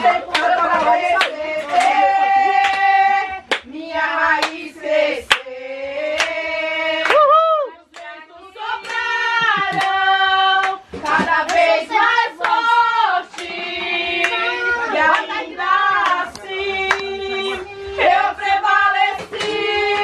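People singing a worship song, holding long notes phrase by phrase, with hands clapping along throughout.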